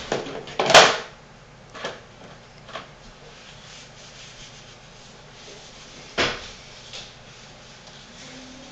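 A few short rubbing knocks, the loudest about a second in and another about six seconds in, with fainter ones between.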